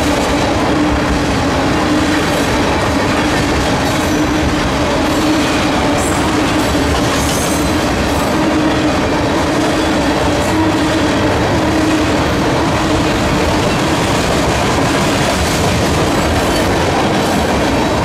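Freight train tank cars rolling past at speed: a loud, steady rumble of steel wheels on the rails, with a clickety-clack from the wheels over the track.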